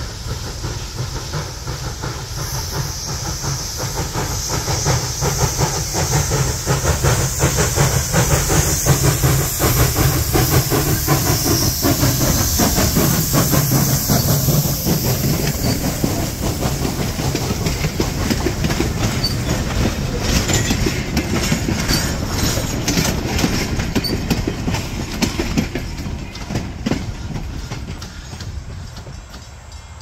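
Pennsylvania Railroad B4a-class 0-6-0 steam switcher No. 643 running by close with a short train of passenger cars. Steam hiss and the rumble of the engine build to a peak about halfway through. Then the cars' wheels clatter over the rail joints and the sound fades near the end.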